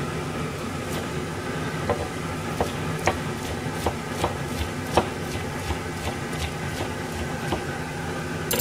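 Kitchen knife cutting fried tofu and tofu on a cutting board, the blade knocking against the board in irregular single strokes, about one or two a second, over a steady background hum.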